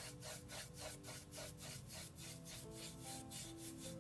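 A paintbrush scrubbing acrylic paint back and forth on a wooden box, a quick rhythmic scratching of about five strokes a second that eases off near the end.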